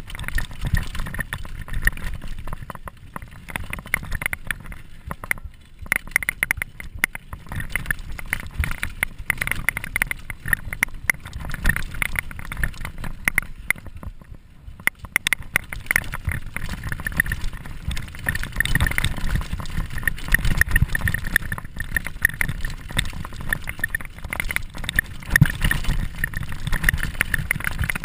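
Mountain bike descending a rough dirt trail, heard from the handlebars: continuous rattling and clattering of the bike and tyres over the bumpy ground, with a low rumble underneath. The noise eases briefly around five and fifteen seconds in.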